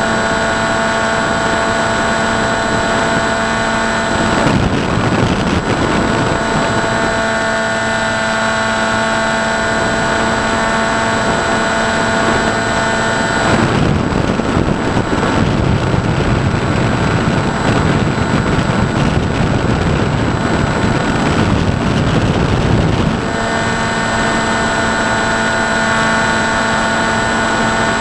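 Onboard sound of a Ranger RC FPV plane in flight: its motor and propeller hum steadily over wind rushing past the airframe. The motor note drops out briefly about four seconds in, and again for about ten seconds in the middle, leaving only wind noise while the plane glides with the throttle cut. It comes back near the end.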